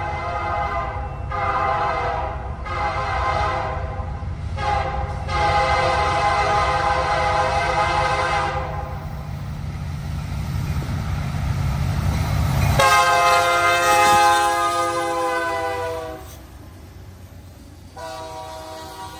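Diesel freight locomotive horn sounding a series of blasts over a low rumble as the train approaches, the last blast held for about four seconds. About thirteen seconds in comes a louder blast lasting about three seconds as the locomotives pass close by, and near the end the freight cars roll past.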